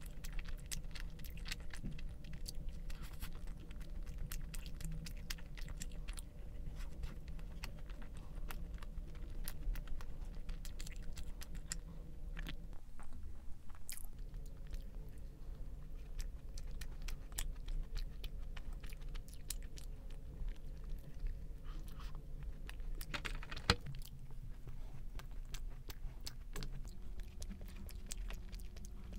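Close-miked chewing and mouth sounds of a person eating, a dense run of small wet clicks and smacks. One sharper click comes a little after two-thirds through.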